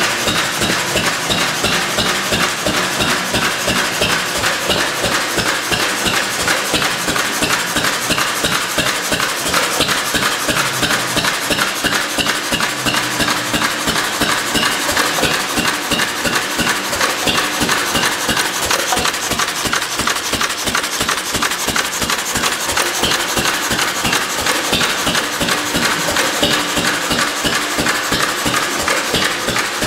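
Vintage Lister Type B hopper-cooled stationary engine running steadily, a rapid, even knocking beat that does not let up.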